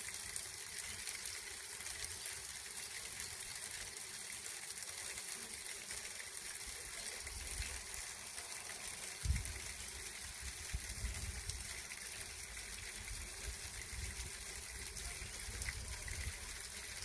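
Steady rush of a mountain stream's water falling and splashing. A low rumble joins about halfway through, with one dull thump a little after the middle.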